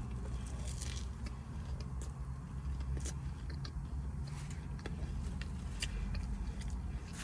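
A person chewing a mouthful of sub sandwich close to the microphone: scattered small wet clicks and smacks from the mouth, over a low steady rumble.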